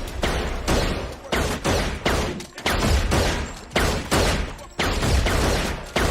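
Repeated gunshots at a shooting range, several guns firing in an irregular run of about two to three shots a second, each shot ringing out into the next.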